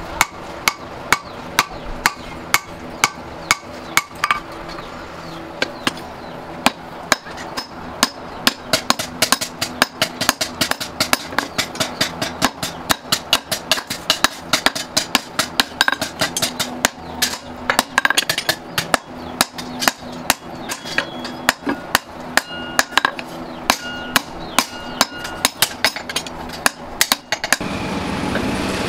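Hand hammer forging a red-hot steel axe head on an anvil: a long run of sharp, ringing blows, about two a second at first and quicker from about a third of the way in, stopping just before the end. A steady noise takes over when the hammering stops.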